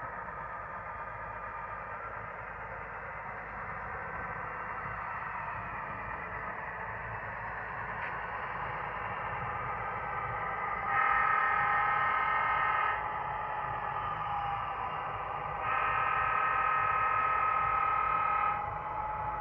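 HO scale model diesel locomotives with sound running, the diesel engine sound playing steadily through a small onboard speaker. Two blasts of the model's air horn come past the middle, the second one longer.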